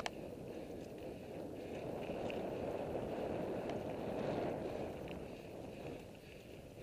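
Wind rushing over the microphone and mountain-bike tyres rolling over a dirt singletrack, swelling in the middle as the bike picks up speed, with a few sharp clicks from the bike, one right at the start.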